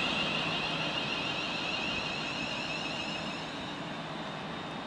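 Two coupled Class 350 Desiro electric multiple units running away along the platform, their traction motors giving a steady high whine over a running rumble that both fade as the train recedes.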